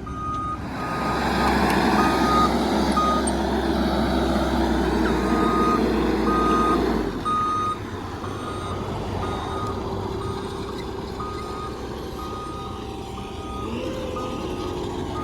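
A truck's reversing alarm beeping steadily, about two beeps a second, over its engine. The engine runs loud and under load at first, then eases off about seven seconds in.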